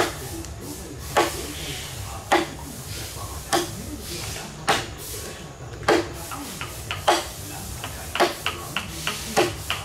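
Axe chopping into a large hardwood log: sharp wooden blows a little over a second apart, with several quicker, lighter knocks between them near the end.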